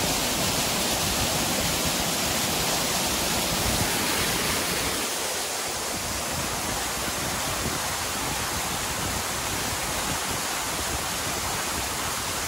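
Steady rush of falling water from Mowbray Falls, a rainforest waterfall, heard close by as an even roar of noise. It turns a little quieter about five seconds in and then holds steady.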